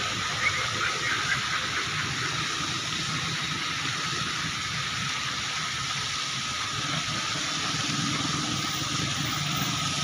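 Water jets of a fountain splashing steadily down into its basin: an even, unbroken rush of falling water.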